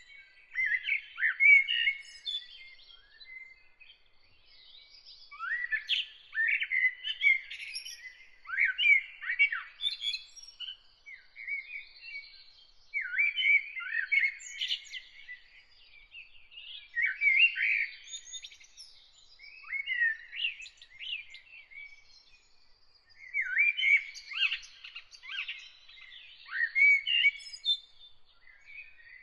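A songbird singing in short, varied phrases of quick chirps and whistles, each a second or two long, with pauses of about a second between them.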